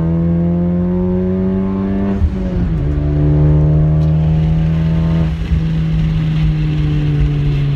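Honda Civic Type R FK8's turbocharged 2.0-litre four-cylinder with an HKS downpipe and midpipe, heard from inside the cabin while driving. The engine note climbs slowly and drops at an upshift about two seconds in, climbs again, then drops at a second shift about five seconds in and holds steady.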